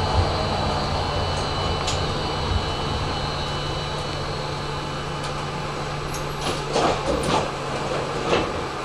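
Tram running, heard from inside near the driver's cab: a steady low electric hum, with a thin high whine that fades away in the first few seconds. Several short clicks and squeaks come near the end.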